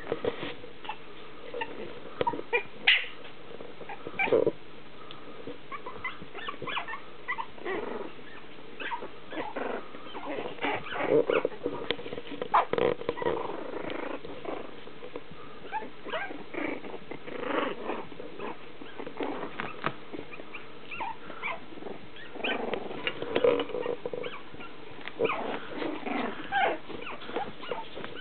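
A litter of young puppies play-fighting, giving many short, irregular growls, whimpers and yips.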